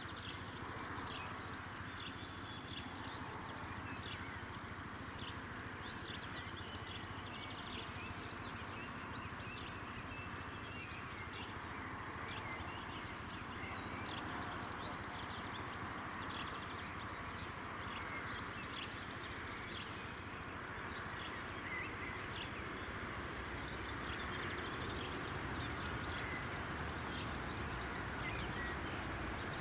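Small birds chirping and singing over a steady background hum, with a louder run of high chirps about two-thirds of the way through.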